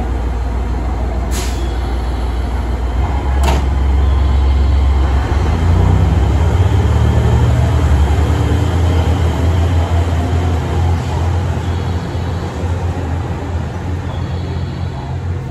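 JR West KiHa 189 series diesel multiple unit running its diesel engines as it departs. The low engine note steps up about three and a half seconds in, is loudest a few seconds later as the train pulls away, then eases off. Two short sharp noises come near the start, about a second and about three and a half seconds in.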